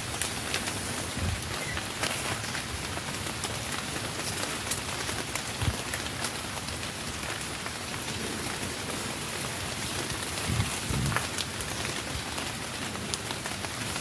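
Steady patter of rain on leaves and ground, with fine scattered drips and a few low thuds about a second in, near six seconds and around eleven seconds.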